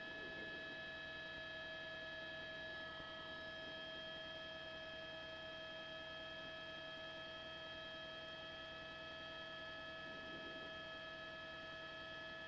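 Faint, steady electronic hum: several fixed high tones held without change over a low hiss, with no sound of the rescue itself.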